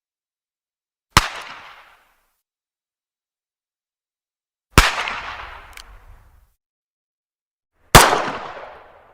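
Three single 9mm pistol shots a few seconds apart, each a sharp crack that dies away in an echoing tail of about a second. A faint click follows about a second after the second shot.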